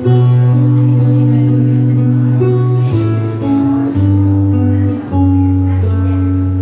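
Acoustic guitar playing the song's instrumental ending: plucked chords over deep held bass notes, the chord changing every second or so.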